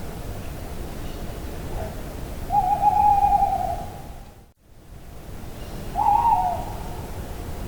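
An animal's hooting call, twice: a long steady hoot and, a few seconds later, a shorter one, over a steady background hiss, with a brief drop to silence between them.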